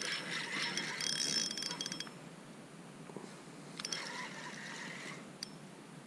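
Spinning fishing reel clicking and whirring in two spells, the first about two seconds long and the second shorter, a little past the middle, as its drag and gears work against a fish pulling on the line.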